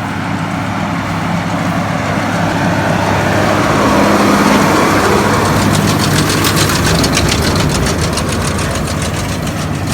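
Tractor engine running steadily while the hay baler it pulls works, growing louder toward the middle, with a fast rattling from the baler's machinery joining about halfway through.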